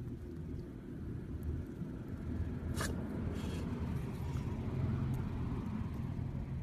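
A pet's short, sharp sneeze about three seconds in, over a steady low rumble.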